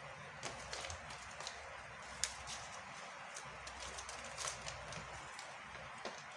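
A large paper instruction pamphlet being handled and folded: soft paper crinkling with scattered light clicks and taps, the sharpest about two seconds in, over a steady faint hiss.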